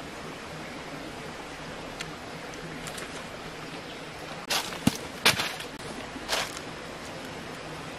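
A few short, crisp crunches of teeth biting into a firm green fruit, clustered a little past the middle, over a steady background hiss.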